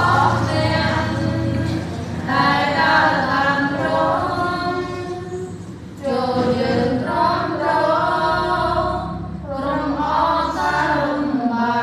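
A small group of female voices singing a hymn together without instruments, in long held phrases with short breaks between them.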